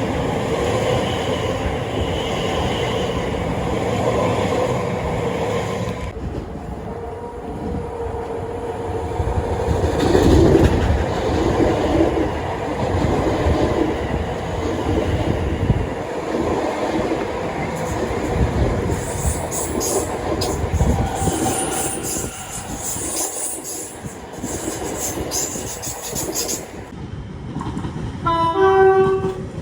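Trains running past on the line, with a steady rumble and the clatter of wheels on the rails. A short horn blast sounds near the end.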